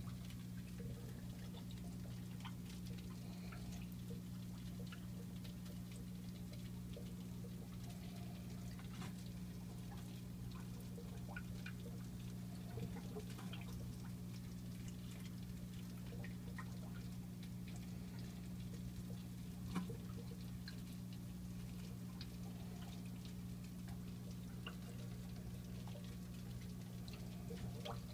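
Steady low electrical hum of aquarium equipment, with faint water drips and small ticks scattered throughout. A slightly sharper tick comes about 20 seconds in.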